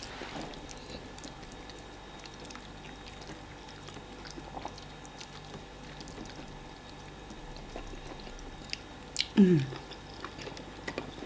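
Soft sounds of people eating fufu and egusi soup: quiet chewing and small mouth and utensil clicks. About nine seconds in there is a short falling vocal sound, like a brief hum.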